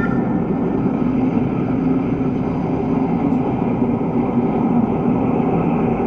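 V'ger ambience sound effect: a steady, dense, low rumbling drone with deep humming tones held beneath it, and a brief high chime at the very start.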